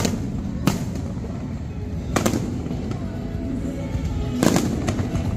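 Aerial fireworks bursting: a few sharp bangs, with a cluster of them about four and a half seconds in, over music playing.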